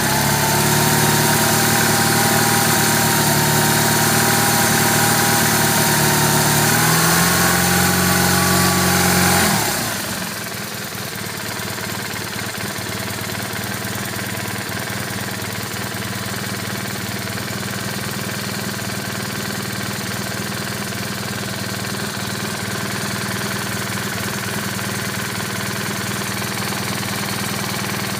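BMW R1200R boxer twin engine held at raised revs for about nine seconds, stepping a little higher near the end of that stretch, then dropping back to a steady idle for the rest. It is running to show an abnormal noise from the gearbox.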